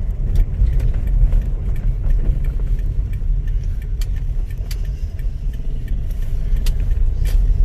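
Low, steady rumble of a Toyota Corolla moving on the road, heard from inside the cabin, with scattered light clicks and rattles.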